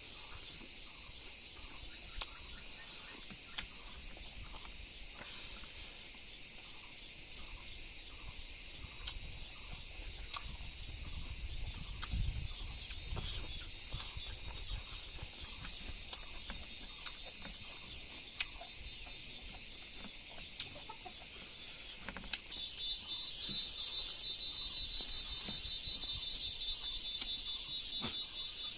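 A steady chorus of insects chirping, high-pitched and pulsing, with a louder, denser insect trill joining about three quarters of the way through. Scattered short sharp clicks sound now and then.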